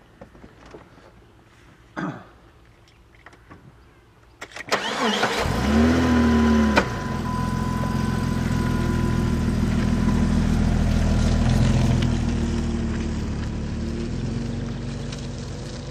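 An engine starts up about five seconds in, its pitch rising briefly as it catches, then runs steadily.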